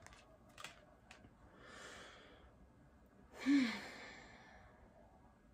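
A woman breathes in softly and then lets out a sigh about three and a half seconds in, with a short falling hum in the voice. A few light clicks of tarot cards being handled come in the first second.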